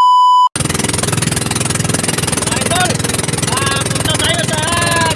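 A loud, steady test-tone beep for about half a second, cutting off sharply. Then a small boat's engine runs steadily, with a low rhythmic pulse and a hiss of wind and water.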